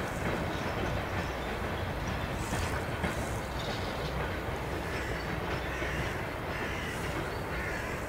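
A train running along the rails with a steady rumble and rail noise, and faint higher squealing in the latter part.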